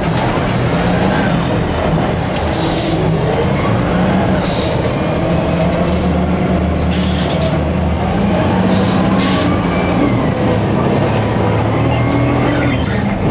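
A Madill 120 grapple yarder working, heard from inside its operator's cab: the diesel engine runs under load while whining tones slide up and down in pitch, and short hisses of air come about six times.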